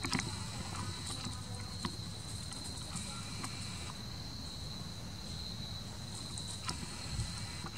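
A steady, high-pitched insect chorus holding one unbroken tone over a low background rumble. A couple of faint clicks come about two seconds in and again near the end.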